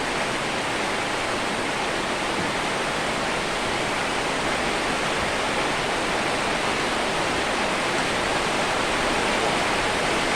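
Steady, even rushing hiss that does not change in level or character.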